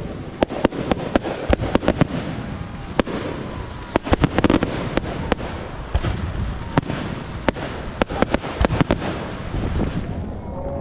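Aerial fireworks shells bursting overhead: an irregular run of sharp bangs and crackling over a steady low rumble, thickest in two dense clusters partway through.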